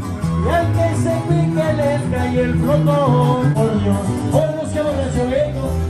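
Live band playing a regional Mexican song, with guitars and a bass guitar under a melody line that slides between notes.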